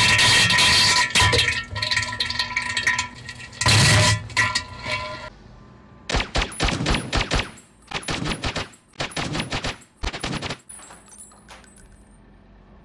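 Two loud, distorted blasts of noise in the first few seconds. Then a rapid run of sharp bangs for about four and a half seconds, which stops suddenly.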